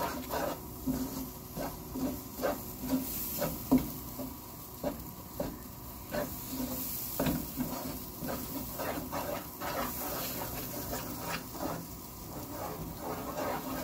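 A wooden spatula stirs and scrapes a thick curry leaf pickle paste around a nonstick frying pan, with a stroke about every two-thirds of a second. Under the strokes the paste cooks with a faint sizzle.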